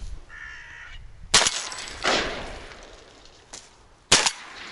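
Two shotgun shots about three seconds apart, each followed by a rolling echo that dies away over about a second.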